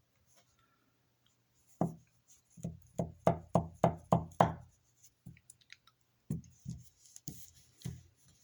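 A string of dull knocks and clacks from handling a loose, cheaply made folding knife whose blade won't lock. One knock comes first, then a quick run of about seven, then a few scattered ones.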